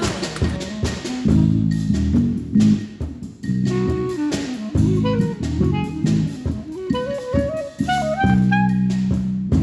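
Jazz-style instrumental music: a stepping melody over a drum beat.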